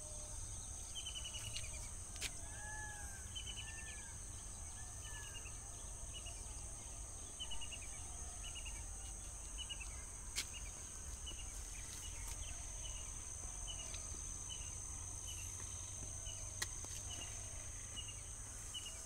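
Rural outdoor ambience: a steady high-pitched insect drone, with a bird repeating a short, quickly stuttered chirp about once a second. A few seconds in, another bird gives three short rising-and-falling whistles; low wind rumble on the microphone and a few faint clicks lie underneath.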